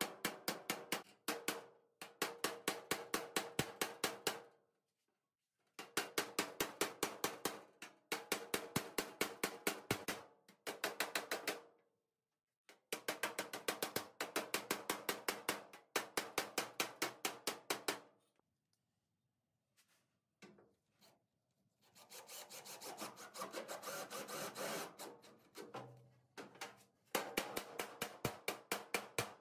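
Hammer beating a steel floor pan into place on an early Ford Bronco, the panel ringing under fast runs of about six blows a second with short breaks between runs. About two-thirds through the hammering stops for a quiet spell and a few seconds of steady noise without blows, then resumes near the end. The blows are closing the gap between the pan and the floor brace.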